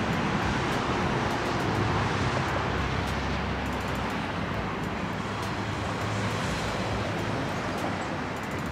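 Steady road traffic noise from nearby passing cars: a continuous hiss with a low hum underneath.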